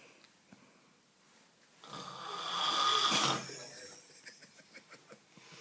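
One massive snore from a sleeping person. It swells for about a second and a half, starting about two seconds in, then cuts off.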